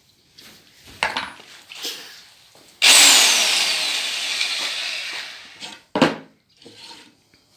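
Parkside PBH 1500 E5 hammer drill's motor run briefly, then spinning down with a falling whine as it coasts to a stop. A few handling knocks come before it, and a sharp thump follows.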